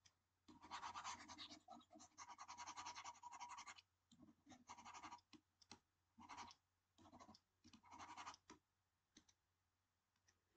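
Faint scratchy rubbing in a run of short bursts: a computer pointing device being scrubbed back and forth while the on-screen eraser wipes ink off a slide.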